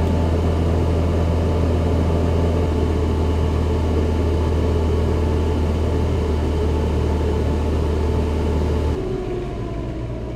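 Wind tunnel fans and a spinning 3D-printed vertical-axis wind turbine whirring steadily over a strong low hum. About nine seconds in, the hum cuts out and the whir starts to wind down with a falling whine as the test run ends.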